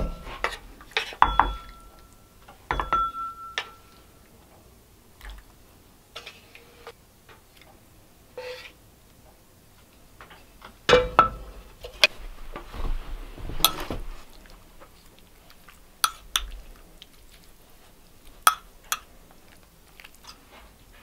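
Wooden spoon scraping and knocking against a cast iron skillet and a ceramic bowl as stew is served: an irregular string of knocks and clinks, a few near the start ringing briefly.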